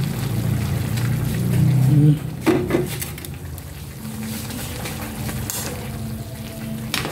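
Fish sauce pouring from a bottle into a simmering pan, stopping abruptly about two seconds in. A metal spatula then clinks and scrapes as it stirs the pan, over a light sizzle.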